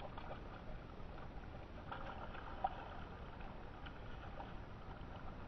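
A hooked rainbow trout splashing and thrashing at the surface of a shallow creek while being reeled in, with irregular splashes over the faint run of the water. A single sharp click about halfway through is the loudest moment.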